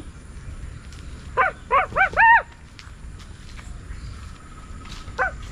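An animal calling: four short rising-and-falling calls in quick succession, the last one longest, and a single call near the end.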